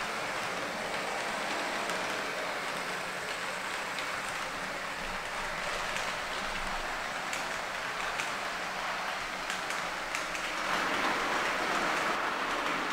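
H0-scale model train with DR double-deck coaches running on the layout's track: a steady rolling rattle of the wheels with scattered clicks, getting a little louder about eleven seconds in.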